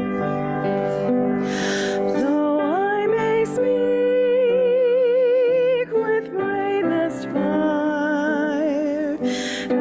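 A woman singing a solo with vibrato over grand piano accompaniment, scooping up into her first phrase and holding a long note in the middle. Her breath is audible before phrases, about a second and a half in and again near the end.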